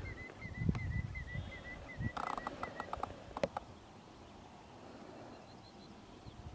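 Arctic terns calling: a thin, short note repeated about four times a second, broken a little after two seconds in by a harsh rasping call, then a few sharp clicks. A brief low rumble about a second in.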